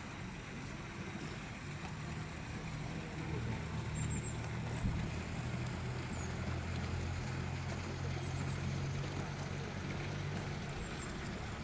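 A steady low motor hum that swells a little from about three seconds in and eases near the end, with a few faint, high, brief chirps.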